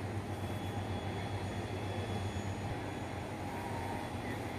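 A steady low machine hum with a rumble beneath, unchanging in level.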